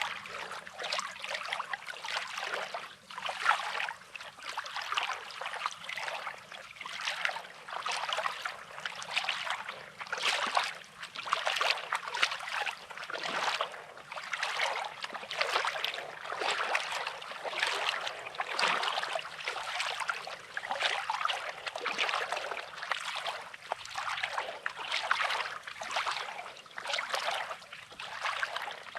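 Small waves lapping and trickling over a pebbly shoreline, with crunching footsteps on coarse, rocky sand about once a second.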